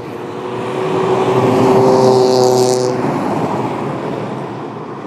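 A motor vehicle passing close by: its engine and tyre noise swell to a loud peak about two seconds in, then fade away.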